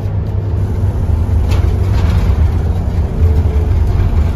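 Scania N230UD OmniCity bus's diesel engine running with a steady low drone as the bus drives along, heard from inside the passenger saloon with road noise. A brief click about a second and a half in.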